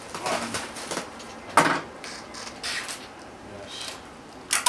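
Plastic bubble wrap being cut and handled: rustling and crinkling with a few short, sharp crackles, the loudest about one and a half seconds in and again right at the end.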